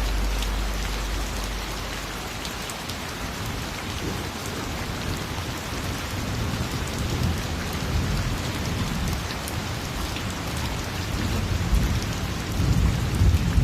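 Steady rain falling, with scattered drop ticks, and a low rumble of thunder rolling in about halfway through and growing loudest near the end.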